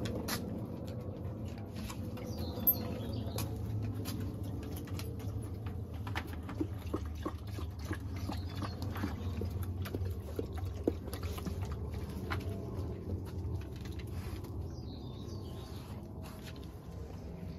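Two dogs, a corgi and a Labrador, feeding together at one bowl: a run of small quick clicks and smacks, thickest in the middle. A bird chirps twice in the background.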